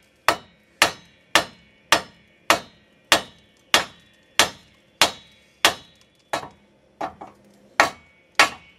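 Hammer blows on the rusty cast front steering knuckle of a 2002 Dodge Dakota 4x4, struck to pop the lower ball joint stud free. About two blows a second, each a sharp metallic strike with a short ring, with a few lighter ones about two-thirds of the way through. The joint stays stuck through these blows.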